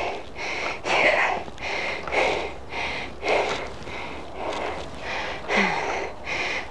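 A person breathing hard and rhythmically, about one loud breath a second.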